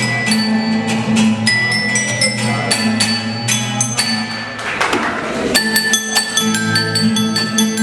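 Ecuadorian tune played on tuned percussion tubes: quick struck notes ring out over a steady bass line, with a short rushing shake about five seconds in.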